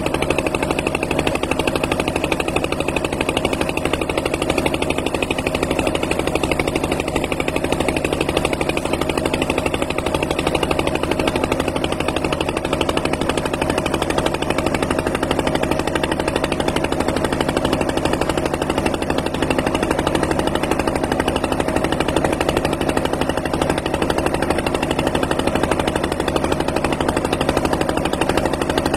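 Boat engine running steadily, a fast even beat of firing strokes that holds the same pace throughout.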